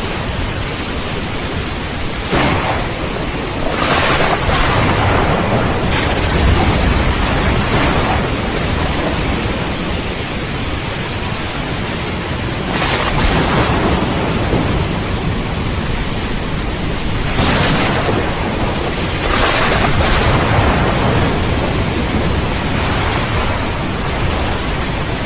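Thunderstorm: a steady hiss of heavy rain, with thunder rumbling underneath and swelling louder several times.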